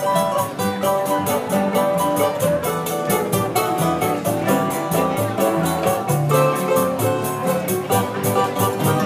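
A live choro ensemble playing: bandolim and cavaquinho picking the melody over violão chords and a plucked double bass, with a pandeiro keeping a quick, steady beat of jingle strokes.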